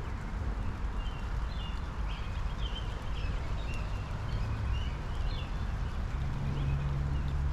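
Steady rain falling in a backyard, with small birds chirping repeatedly in the first few seconds. A low steady hum comes in near the end under the rain.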